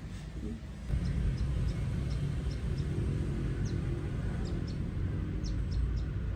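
Outdoor ambience: a steady low rumble, starting about a second in, with small birds giving short high chirps again and again.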